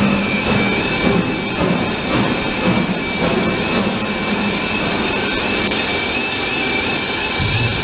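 BR Standard Class 4MT 2-6-4 tank locomotive 80078 moving slowly past at close range, giving off a loud, steady hiss of steam. A thin two-tone warble from the level crossing alarm sounds above it throughout.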